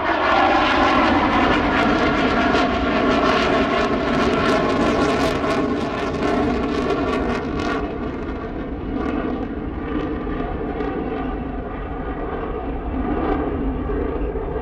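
Panavia Tornado's twin RB199 turbofans running loud in afterburner as the jet passes and climbs away, with a ragged crackle for the first several seconds before the sound slowly fades.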